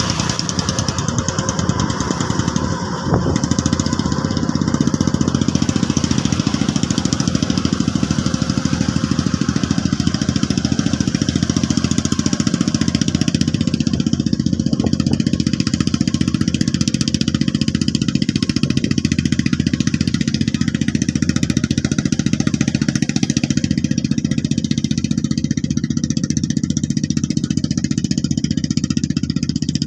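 Homemade Cambodian farm truck's engine running steadily, becoming louder about four seconds in.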